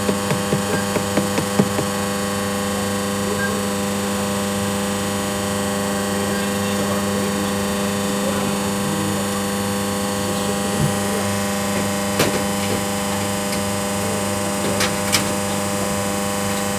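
Self-serve almond butter grinding machine's electric motor running with a steady hum, grinding almonds into fresh almond butter. Light clicks during the first couple of seconds and a few sharp taps later on.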